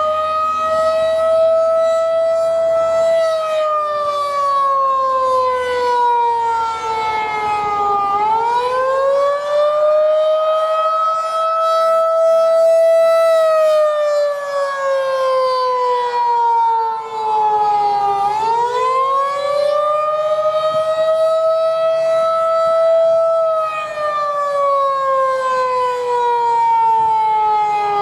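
Federal Signal 2001-DC outdoor warning siren sounding a wail on a test run. Its pitch climbs quickly, holds for a few seconds, then slides slowly down, and the cycle repeats about every ten seconds.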